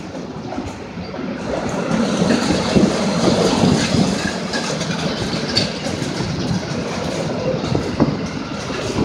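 Freight train of double-deck car-carrier wagons rolling past, its wheels rumbling and clicking over the rail joints; the sound swells about a second in and then holds steady.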